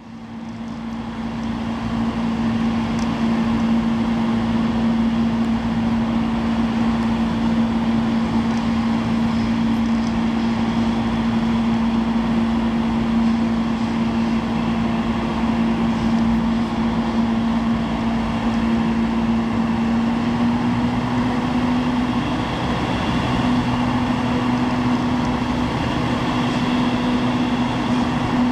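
Steady mechanical hum: a constant low tone over an even rushing noise, the tone stepping slightly higher about three quarters of the way through.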